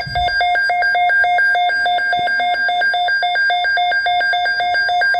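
Electronic emergency alert tone, two pitches alternating rapidly, about four to five times a second, signalling an incoming National Weather Service severe thunderstorm watch.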